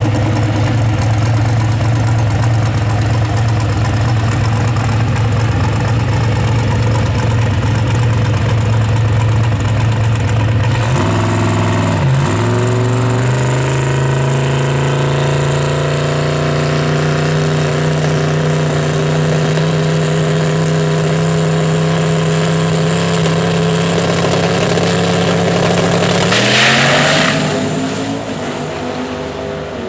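Twin-turbo 438 cubic-inch LSX V8 in a 1963 Chevrolet Impala drag car running steadily at low rpm, then revving briefly and holding a steady higher rpm at the starting line. About 26 seconds in it launches at full throttle: the pitch climbs fast with a bright burst of noise, then the sound falls away as the car pulls down the track.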